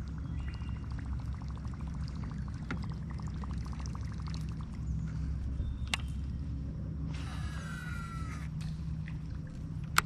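Wind rumble and water lapping against a boat hull, with a few sharp clicks and a brief whir with a falling pitch about seven seconds in.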